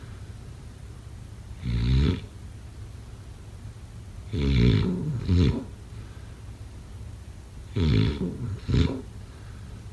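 A person snoring in sleep: three snores about three seconds apart, the second and third each followed by a short second snore.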